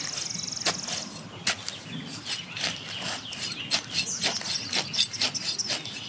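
Dry straw crackling and snapping in irregular clicks as a knife is stabbed into a straw bale to chop a planting hole. An insect trills in the background until about a second in, with faint bird chirps later.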